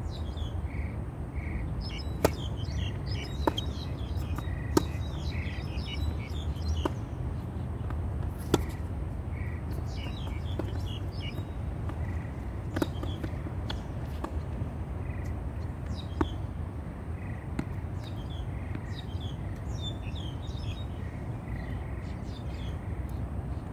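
Tennis ball being struck by rackets and bouncing on a hard court during a rally: sharp pops a second or so apart from about two seconds in, stopping a few seconds before the end. Birds chirp throughout over a steady low rumble.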